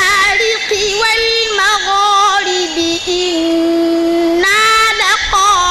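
Solo male voice chanting the Qur'an in melodic tajwid style: ornamented, wavering turns, then a long held note about three seconds in, and a new phrase starting near the end.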